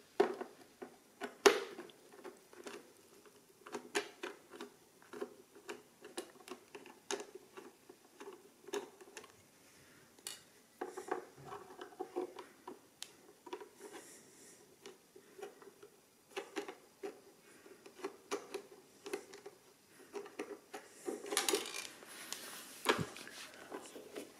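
Screwdriver turning out the case screws of an Olympia AE-8 adding machine: a long run of small, irregular clicks and ticks of metal on metal, with a louder stretch of handling noise near the end.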